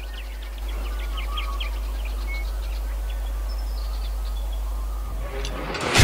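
Small birds chirping and calling over a steady low rumble. Near the end a loud whoosh rises.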